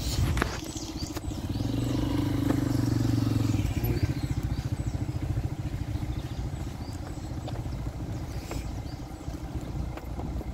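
Vehicle engine running steadily on a mountain dirt road, pulling harder for a couple of seconds before easing off again.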